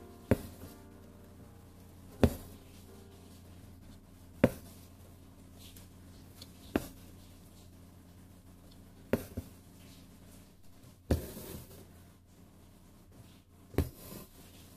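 Embroidery needle being pushed through taut fabric in a wooden hoop: a sharp pop about every two seconds as it pierces the cloth, some followed by a short rasp of six-strand floss drawn through.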